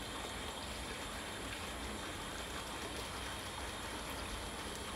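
Steady background noise with a faint low hum and no distinct events.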